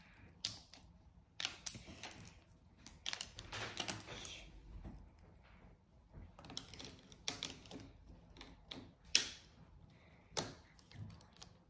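Irregular light clicks and taps with short scratchy stretches: gel pens being handled in their plastic case and colouring on paper at a hard tabletop.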